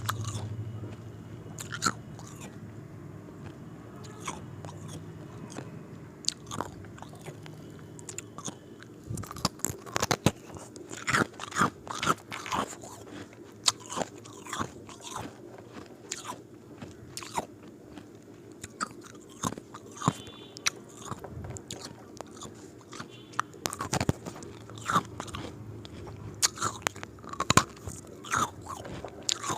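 Ice cubes being bitten and crunched in the mouth: irregular sharp cracks and chewing, coming thicker from about a third of the way in, over a low steady hum.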